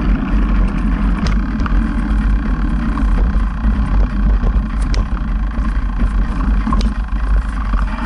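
Steady rumbling ride noise and wind buffeting on the microphone while riding along a bumpy dirt trail, with a few sharp clicks and knocks from the ride.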